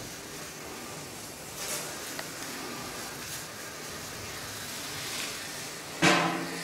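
Faint rustling and scraping of a body and clothing crawling on a stone floor, over a steady hiss. About six seconds in, a sudden loud pitched sound starts and fades.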